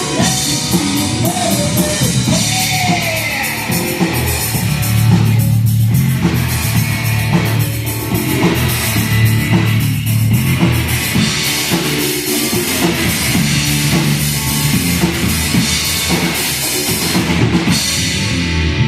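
Loud rock music with a full drum kit playing throughout.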